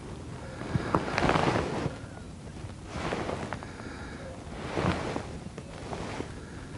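Wind blowing across a clip-on microphone, the noise swelling in about three gusts, with a few faint small clicks.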